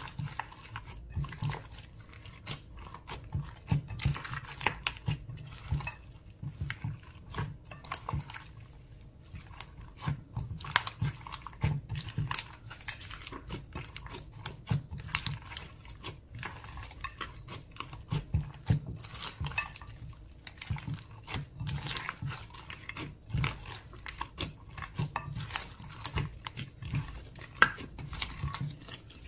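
Slime being mixed and squished, with a dense, irregular run of sticky pops, clicks and crackles.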